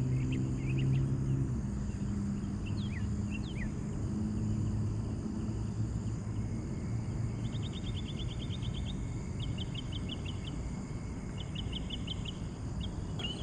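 Outdoor ambience: a steady low rumble, with a small bird giving a few sliding high chirps about three seconds in, then three short, fast high trills about a second each in the second half.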